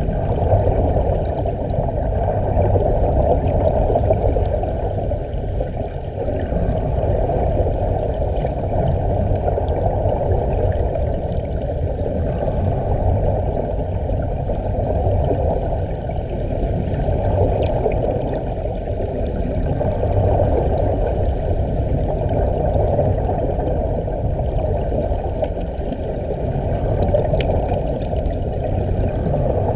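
Muffled underwater rush and gurgle of air bubbles streaming from divers' breathing gear and air-fed dive helmets. It swells and eases every few seconds.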